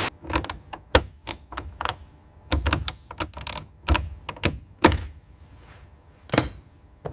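Hand tools clicking and knocking on car body metal: a run of irregular sharp clicks and thunks, a few each second, then a single knock after a short pause near the end.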